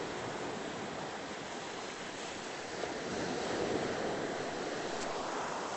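Ocean surf washing up the beach, a steady rush of waves that swells a little louder about three seconds in.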